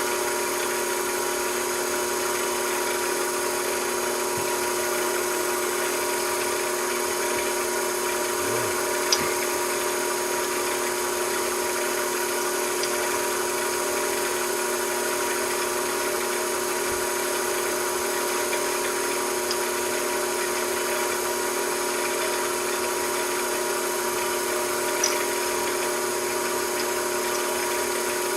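A machine tool running steadily with an even, unchanging hum and whine, with a faint tick twice.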